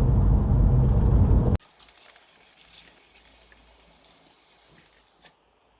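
Loud, steady low rumbling noise that cuts off abruptly about a second and a half in. A faint hiss follows, with a single small click near the end.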